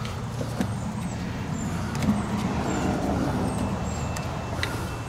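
A steady low background rumble with a few light clicks and taps as parts of a trolling motor are handled during disassembly.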